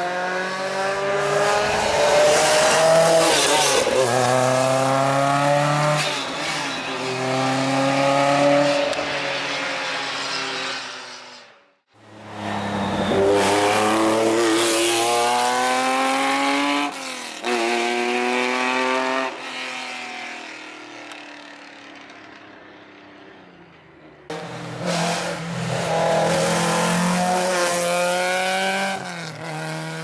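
Historic rally cars at full throttle, one after another. Each engine revs up in a rising whine and drops back at every gear change, over and over. Partway through, one car pulls away and fades, and then another arrives suddenly.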